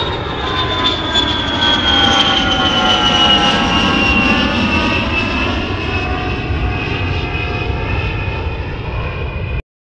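Jeep engine running at idle, a steady rumble under a high multi-tone whine that slides down in pitch over the first few seconds and then holds steady as the idle settles; the engine is running again after the crank/no-start fix. The sound cuts off abruptly near the end.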